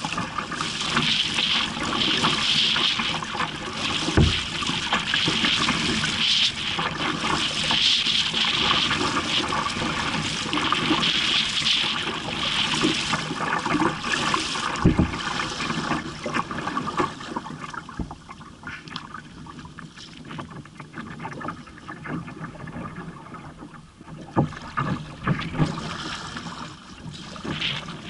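Kayak paddle strokes splashing through choppy water, about one every two seconds, with water slapping against the hull; the splashing grows quieter in the second half. Two dull knocks stand out, one a few seconds in and one about halfway.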